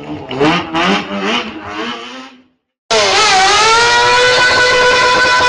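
Sport motorcycle engine revved hard in about four quick rising blips, cut off abruptly about two and a half seconds in. After a short silence, a loud steady high-pitched drone takes over, dipping briefly in pitch before holding steady.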